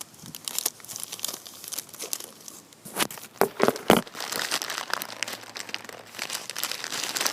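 Packaging being crinkled and torn while it is pulled open, with a few sharper, louder cracks about three to four seconds in.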